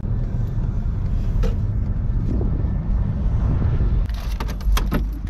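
Volkswagen car's engine running, heard from inside the cabin as a steady low rumble. About a second before the end comes a quick run of sharp clicks.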